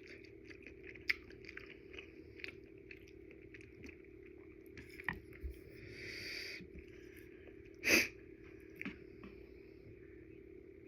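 Close-miked chewing of udon noodles: small wet mouth clicks and squishes over a steady low hum, with a brief noisy swell about six seconds in and one sharp, louder knock near eight seconds.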